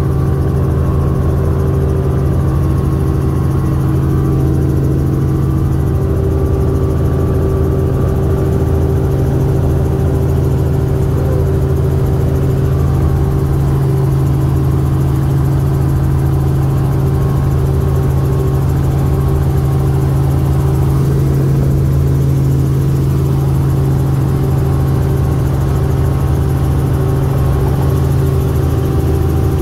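Steady drone of a light helicopter's engine and rotor, heard from inside the cabin as it climbs in flight.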